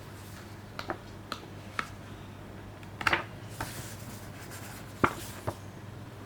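A Blu-ray set and its packaging being handled: scattered sharp plastic clicks and taps, a cluster of them about three seconds in and the loudest about five seconds in, with a brief rustle just before it, over a steady low hum.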